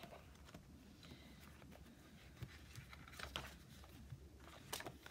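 Quiet paper rustling with a few soft flaps as the sheets of a sticker book are leafed through, mostly near silence between them.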